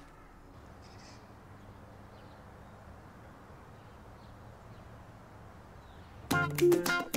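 Faint outdoor ambience with a few faint bird chirps. About six seconds in, loud upbeat music with sharp percussive hits cuts in suddenly.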